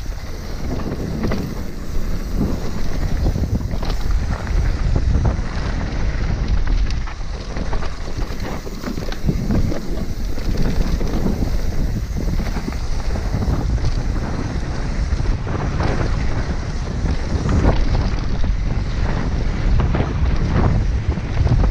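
Wind rushing over the microphone as an enduro mountain bike descends a dry dirt trail at speed, with tyres rolling on dirt and the bike rattling and knocking irregularly over bumps.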